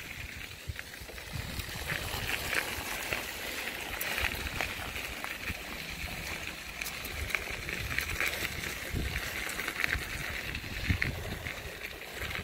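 Bicycle tyres rolling over a gravel road, a continuous hiss full of small ticks from the stones, with wind rumbling on the microphone.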